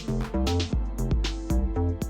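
Background music: an electronic track with a steady beat, bass notes and pitched instrument lines.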